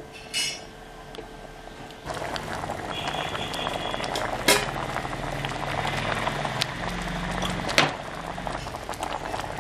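Thick dal sambar with drumstick pieces bubbling at a rolling boil in an open pressure cooker, the vegetables cooking in the dal. The bubbling starts about two seconds in, with two sharp clicks later on.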